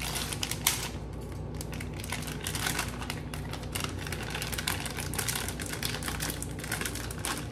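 Plastic bag of shredded cheddar cheese being opened and crinkled in the hands: a dense, irregular run of sharp crackles.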